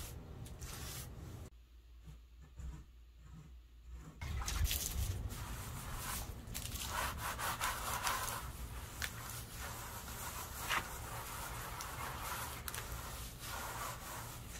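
Wet sponge float rubbing over freshly set stucco patch, a gritty scrubbing that brings out the sand aggregate to match the old sponge-float finish. It stops about a second and a half in and starts again around four seconds in.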